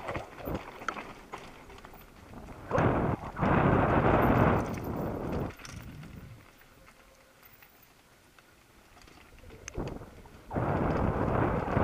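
Mountain bike rolling down a stony dirt trail, with tyres crunching over stones and the bike clattering and knocking. There are two loud rushes of noise, about three seconds in and again near the end, with a quieter stretch between them.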